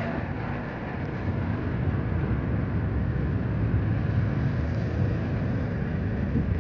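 Jet engines of an Airbus A320-family airliner on final approach with its landing gear down: a steady low rumble that grows a little louder after about a second.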